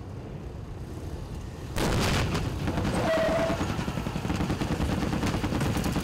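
Military vehicle engines running, then about two seconds in a sudden loud blast, followed by rapid irregular gunfire from soldiers' rifles during a simulated assault.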